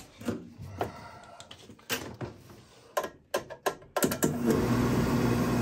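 A few scattered clicks and knocks, then about four seconds in the oil furnace's burner motor starts and runs with a steady hum.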